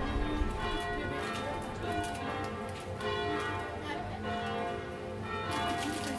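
Church bells ringing, with a new stroke about once a second over the lingering hum of earlier strokes.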